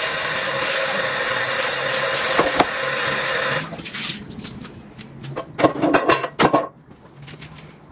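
A motor-driven appliance runs with a steady whirring hum and cuts off about three and a half seconds in; a few clatters and knocks follow.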